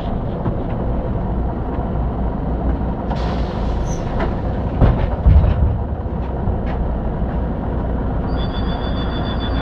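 City bus heard from on board: a steady low engine rumble as it pulls up at a stop, with a burst of compressed-air hiss about three seconds in and a couple of knocks around five seconds. A steady high two-tone beep starts near the end.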